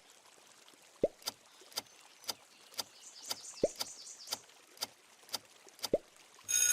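Quiz countdown timer sound effect: soft ticks about twice a second, with a short water-drop plop three times. A buzzy chord starts near the end.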